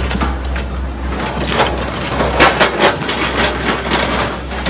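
A heavy vehicle engine running with a steady low rumble, under irregular knocks and clatter.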